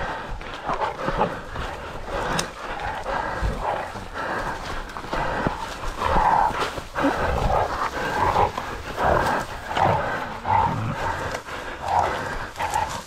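Pig dogs holding a caught feral pig, their animal noises coming in short, irregular bursts.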